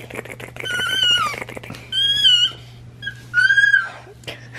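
A baby's high-pitched squeals, three short ones about a second apart, over rustling of bedding early on.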